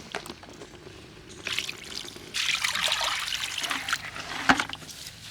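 Water trickling and splashing as raw skinless chicken pieces are washed by hand, louder from about two and a half seconds in, with a sharp knock near the end.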